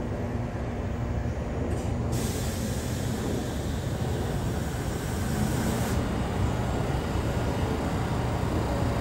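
New York City subway 4 train running on the track: a steady rumble of wheels and motors, with a high hiss that cuts in about two seconds in and stops sharply about four seconds later.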